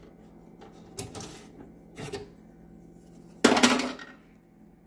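Blue plastic drive caddy holding an SSD, handled against a desktop PC's metal case and drive cage. Light clicks come about one and two seconds in, then a louder clatter about three and a half seconds in.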